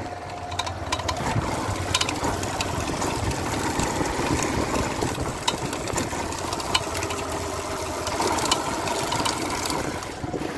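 Yamaha Fazer 150's single-cylinder engine running while the motorcycle rides over cobblestones, with irregular sharp knocks and rattles throughout. The knocking is the drive chain slapping the chain guide against the swingarm, which the mechanic traces to a dried-out chain slider.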